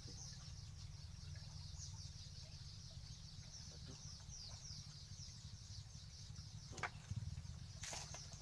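Small birds chirping continuously in quick, high, falling notes over a steady low rumble, with a couple of sharp knocks near the end.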